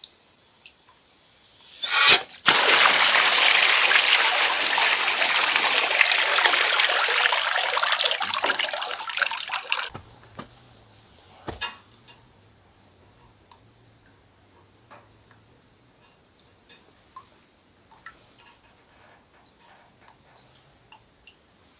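A loud rush of water or liquid lasting about seven seconds. It starts with a sharp hit and cuts off suddenly, and faint small clicks follow.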